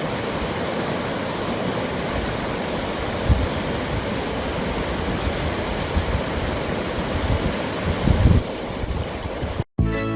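Rushing river water, a steady hiss and roar, with a few low wind buffets on the microphone about three seconds in and again near eight seconds. It cuts off abruptly near the end, and acoustic guitar music starts.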